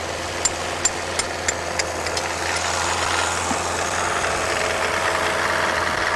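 Car engine idling while its spin-on oil filter is struck about six times in quick succession to knock a hole in it, then pressurised engine oil gushing out of the hole into a plastic bucket, splashing steadily as the oil pump keeps it flowing.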